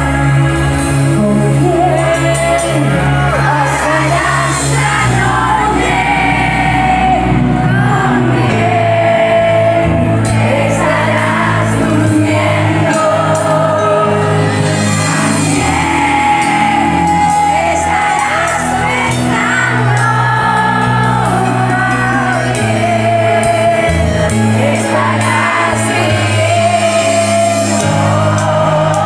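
Live cumbia band playing a song from a medley, with a female singer's voice over the band and shouts from the crowd.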